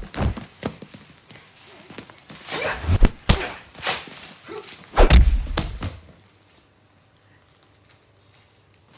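Staged fight sounds: a quick series of thuds and swishes, the heaviest hit about five seconds in. After about six seconds it falls much quieter.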